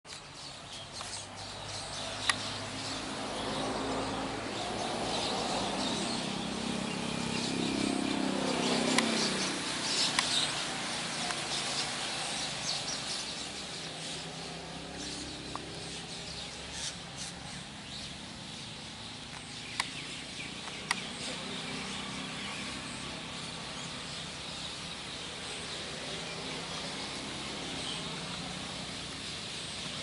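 A large flock of small birds chirping and calling together at once, a dense, continuous chorus of overlapping twitters. A low hum swells and drops in pitch about eight to ten seconds in, and a few sharp clicks stand out.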